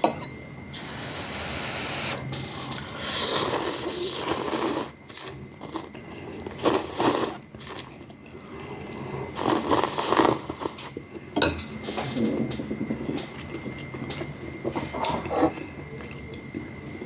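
Close-up eating of rice noodle soup with meatballs: irregular bursts of slurping and chewing, with a few sharp clicks of utensils.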